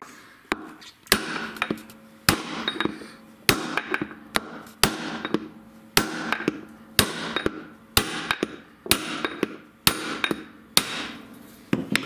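Hammer blows on a drift driving the large 206 ball bearing out of the plastic rear tub half of an LG washing machine, about one strike a second, each with a short ring after it. The bearing is a worn-out one being knocked out for replacement.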